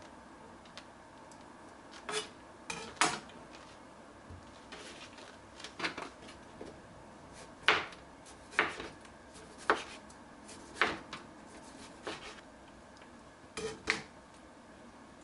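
Kitchen knife slicing a tomato on a plastic cutting board: sharp single and double knocks of the blade striking the board, irregular, about one a second.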